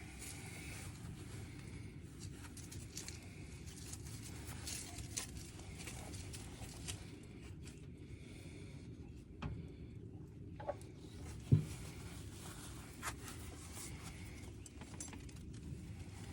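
Small metal parts being wiped and handled: light scattered clicks and rustles over a low steady background hum, with one sharper knock about eleven and a half seconds in.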